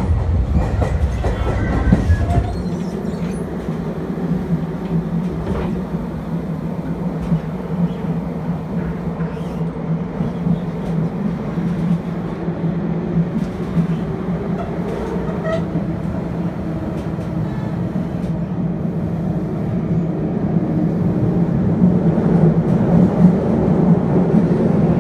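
Tobu 30000 series electric train running through a subway tunnel, heard in the gangway between its two coupled units. A heavy rumble drops away about two and a half seconds in, leaving a steady hum with scattered wheel clicks.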